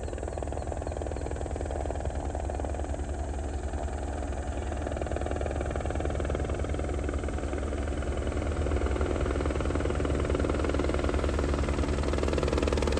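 Crop-spraying helicopter's rotor beating steadily over its engine, growing gradually louder.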